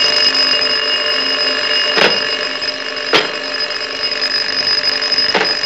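Several old desk telephones' bells ringing together in one loud, unbroken jangle. Three sharp knocks cut through it, about two, three and five and a half seconds in.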